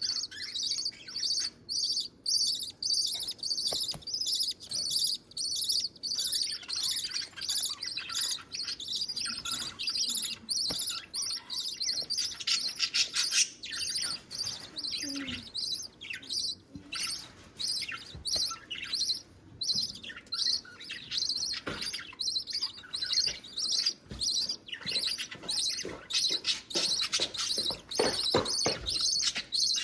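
Budgie chicks begging to be fed: a steady stream of short, high-pitched chirps, about three a second. A few sharp clicks come near the end.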